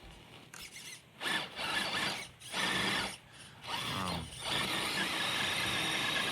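Electric motor whine of a radio-controlled car with a Hobbywing brushless power system, driving through snow. It comes in short throttle bursts, then one longer steady run from about halfway through.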